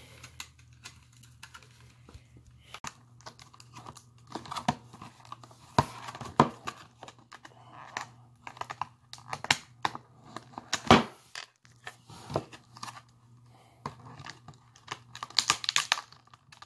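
A clear plastic retail box being handled and opened by hand: irregular clicks, taps and crinkling of stiff plastic, with short tearing sounds as the seal is picked open.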